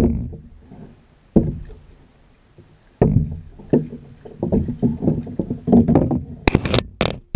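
Irregular hollow thumps and knocks: three spaced thumps, then a quick uneven run of them, with a few sharp clicks near the end.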